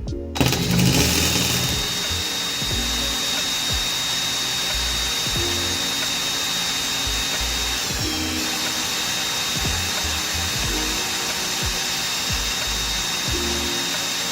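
A small handheld electric tool's motor running steadily, with a hiss and a high whine that dips briefly about halfway through, over background music with a low bass line.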